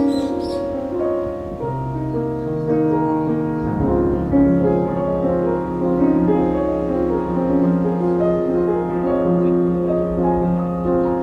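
Background music: a soft piano tune with sustained notes and a low bass line.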